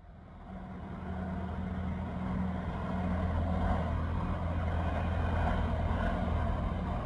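Mermec TIPO4 track-measurement vehicle passing along the track, its drive running with a steady low hum over rolling noise, growing louder over the first two seconds and then holding steady.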